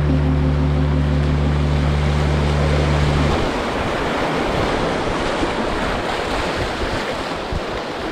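Sustained low background music chord that cuts off about three seconds in, leaving river water rushing and splashing around the kayak as it runs a small rapid, with some wind on the microphone.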